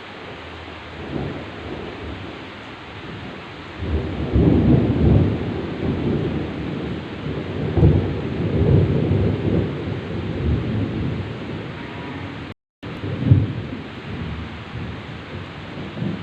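Heavy rain falling steadily with a long roll of thunder that swells about four seconds in, rumbles on for several seconds and flares again near the end. The sound cuts out completely for a split second about two-thirds of the way through.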